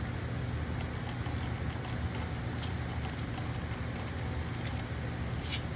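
Beyblade Burst top (Twister Pandora) spinning in a plastic stadium: a steady whirr with scattered light ticks, and a sharper click near the end.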